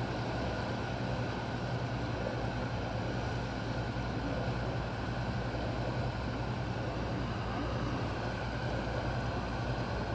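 Motor yacht's engines running steadily under way, a constant low drone with an even rushing noise over it.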